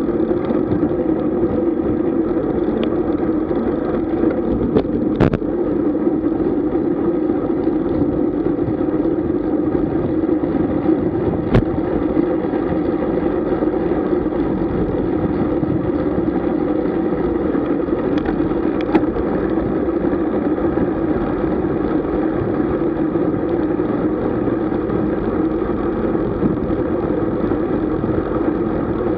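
Steady rush of wind and tyre noise from a road bike being ridden, with a few brief sharp clicks along the way.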